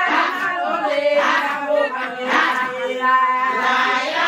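A group of women singing together, several voices chanting a song at once.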